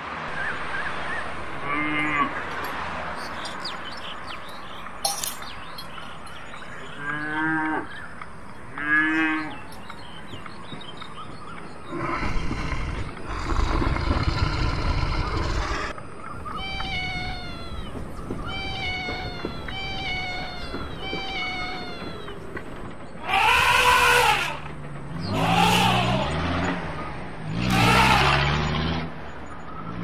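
A string of different animal calls, one after another: a few short cries, a few seconds of rough noise, a run of short falling chirps, then three loud calls near the end.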